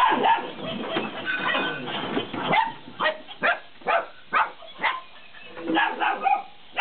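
A battery-powered laughing cat toy playing its recorded laugh while a Belgian Malinois puppy barks and whines at it. Near the middle comes a run of short, sharp sounds about two a second.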